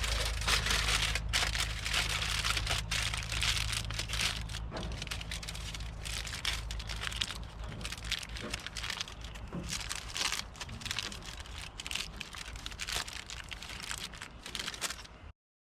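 Rain pattering on the fabric of a roof-top tent, a dense crackle of drops over a steady low hum, slowly easing off before it cuts off suddenly near the end.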